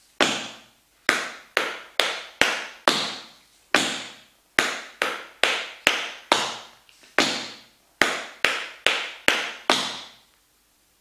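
Metal taps on tap shoes striking a wooden floor in a tap-dance routine. About eighteen sharp taps fall in an uneven, syncopated rhythm, each fading briefly, and they stop about a second before the end.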